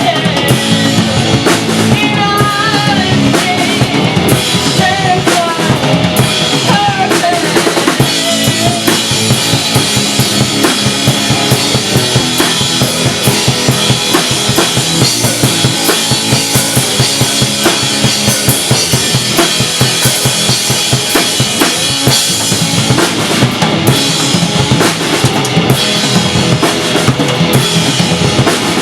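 Live garage-rock instrumental passage by a guitar-and-drums duo: a drum kit played hard and steadily with bass drum and snare, under electric guitar. Wavering, bending high notes stand out over roughly the first eight seconds, after which the drumming dominates.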